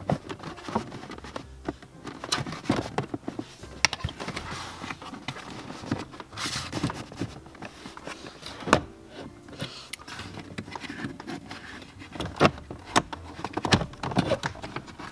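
Plastic under-dash footwell trim panel of a BMW E90 being worked into place: scraping and rustling with many scattered knocks and clicks as it is pushed onto its rear catch.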